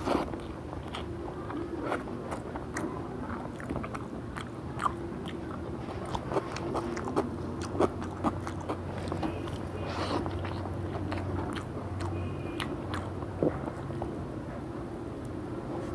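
Close-miked eating sounds: a person chewing and biting a mouthful of mutton biryani, with scattered sharp crunches and mouth clicks over a low steady hum.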